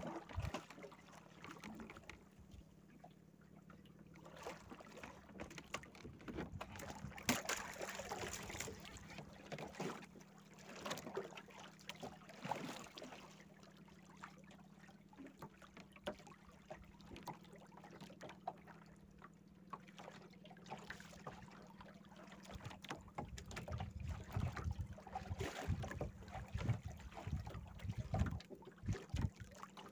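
Water sloshing and slapping against the hull of a small fishing boat at sea, with scattered knocks and drips as a handline is pulled in by hand, over a steady low hum.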